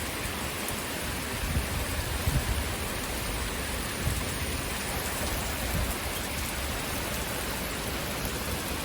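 Heavy rain pouring down steadily in a severe thunderstorm, an even hiss of downpour.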